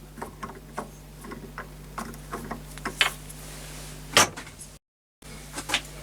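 Light metallic clicks and knocks from handling threaded metal parts during a test fit on the lathe, over a steady low hum. A sharper knock comes about four seconds in, followed by a brief dropout.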